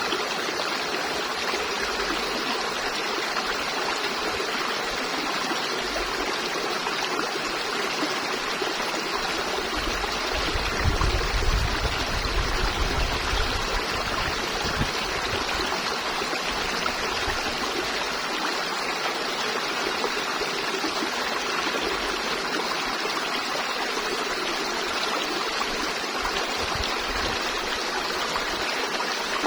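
River water flowing and rushing steadily over rocks. A low rumble swells for a few seconds about a third of the way in.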